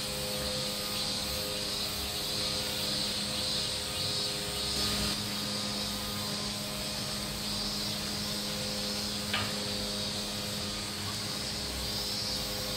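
Steady background noise: a constant low hum with a pulsing high-pitched hiss over it, and a single short click about nine seconds in.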